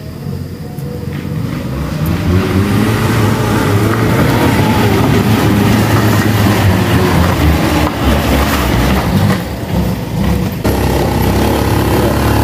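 A minivan's engine working hard up a steep dirt climb, its pitch wavering as it labours. Near the end it gives way abruptly to a scooter's engine running steadily.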